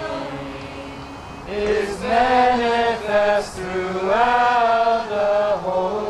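Voices singing a slow song, long held notes that slide gently in pitch, growing louder about a second and a half in.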